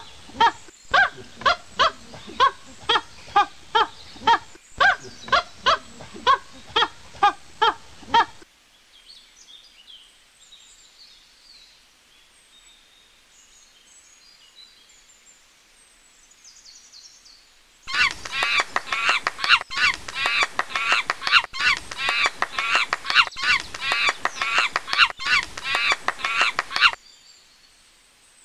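Recorded animal calls: a steady series of loud calls, about two a second, stops about eight seconds in, and faint chirping follows. About eighteen seconds in, a dense, rapid run of higher calls starts, repeating in short loops, and it cuts off suddenly near the end.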